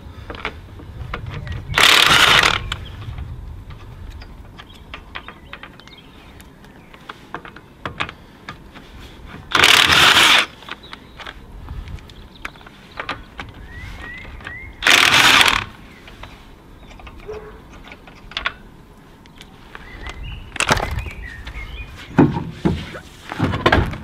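Cordless impact wrench hammering car wheel lug nuts loose in three short bursts of under a second each, spread several seconds apart. Scattered clicks and knocks follow near the end as the wheel is handled.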